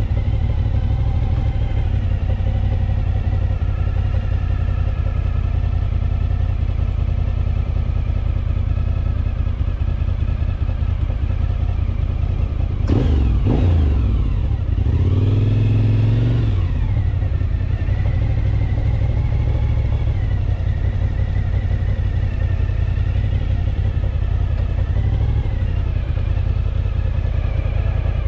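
Motorcycle engine running steadily at low speed, heard from the rider's seat. About thirteen seconds in, other motorcycles pass close by for a few seconds, their engine pitch sweeping up and then down.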